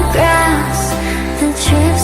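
Pop song with a gliding sung or lead melody over deep bass and light percussion hits.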